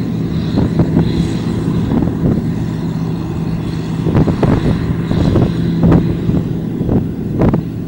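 Large farm machine's engine running at a steady speed, with irregular clanks and rattles from the machine on top.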